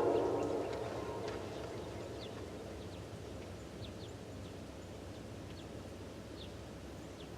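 A train horn cuts off at the very start, its last low note dying away within about half a second as the train's rumble fades. Then low, steady background hum with small birds chirping now and then.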